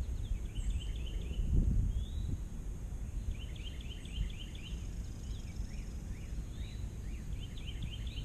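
Outdoor ambience: a small songbird singing runs of quick, repeated chirps, over a steady low rumble, with one low thump about a second and a half in.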